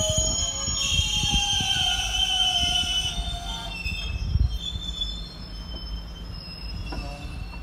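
Loaded stone wagons of a freight train rolling slowly, their wheels squealing in high, drawn-out tones over a low rumble and repeated knocks of wheels on the rails. The squeal eases about halfway through.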